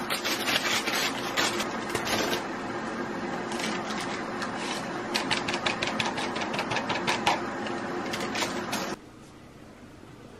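Paper cup-soup sachet crinkling and rustling as it is torn open and the onion consommé powder is shaken into a mug, over a steady mechanical hum that cuts off suddenly about nine seconds in.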